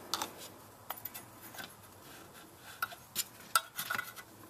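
Irregular light metallic clicks and clinks as a new oxygen sensor is threaded by hand into the exhaust manifold.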